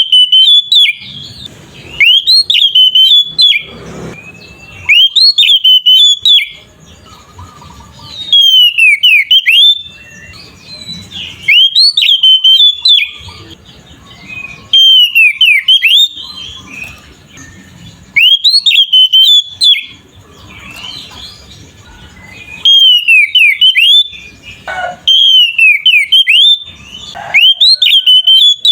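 Oriental magpie-robin (kacer) singing loud, full-voiced whistled phrases, each about a second and a half long, repeated roughly every three seconds.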